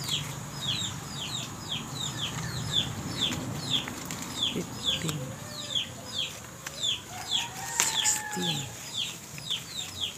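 A bird chirping over and over in short falling notes, about two or three a second, over a thin steady high tone.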